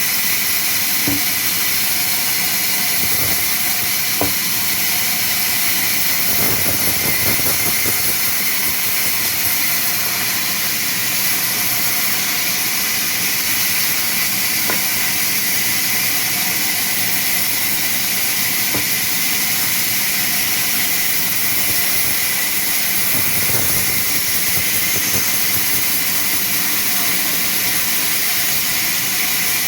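Sawmill saw running with a steady, loud high hiss, with a few scattered knocks.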